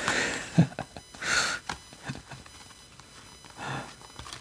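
Glossy printed cards sliding against one another as they are flipped through by hand: a few soft swishes with light taps between, the sharpest tap about half a second in.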